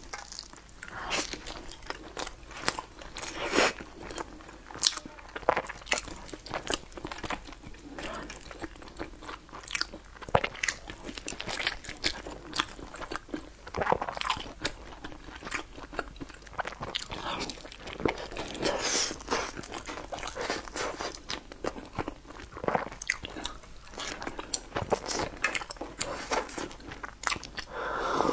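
Close-miked eating sounds: chewing and biting, with many short sharp clicks, smacks and crunches. Near the end, swallowing a drink of water from a glass.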